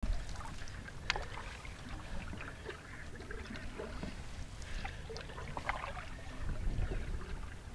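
A wooden canoe paddle dipping and pulling through calm water, with scattered small splashes and drips, over a low steady rumble.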